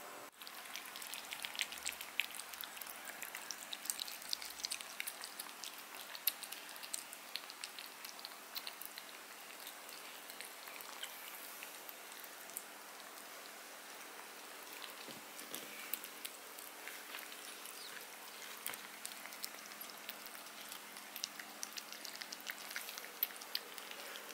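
Kittens and their mother cat eating from a plate: many small, wet chewing and licking clicks, over a steady low hum.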